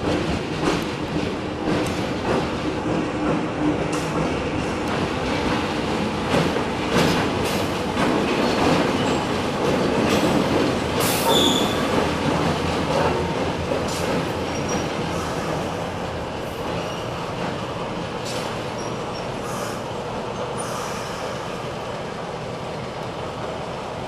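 Diesel locomotive moving slowly through the station: a steady engine and running rumble with irregular clicks of the wheels over rail joints, and a brief high wheel squeal about eleven seconds in. The sound eases off over the last several seconds.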